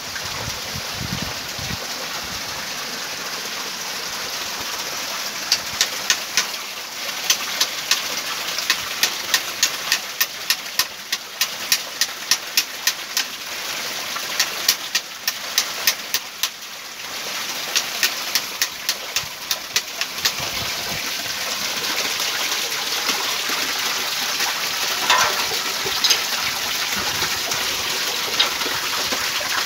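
Water gushing through the wheel chamber of a small watermill with a horizontal wooden water wheel. From about five seconds in until about twenty seconds in, a run of sharp taps comes a few times a second as the wheel's fittings are worked on.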